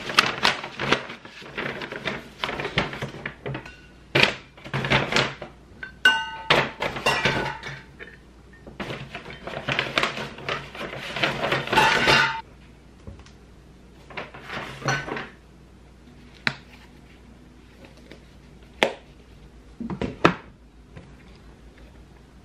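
Brown paper shopping bag rustling and crinkling as things are packed into it, with a ringing clink of dishware about six seconds in and another near twelve seconds. After that it goes quieter, with a few sharp knocks as things are set down or handled.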